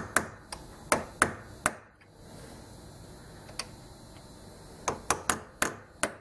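Light metal-on-metal taps on a 4 mm steel shaft used as a drift, knocking the shaft of an Align BL650L brushless motor out of its bearing. It goes as a quick run of about six taps, a pause of about three seconds with a single tap, then another run of about six taps.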